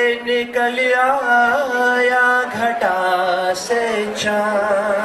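A man singing a slow Hindi song into a microphone through a PA, drawing out long held notes that waver in pitch.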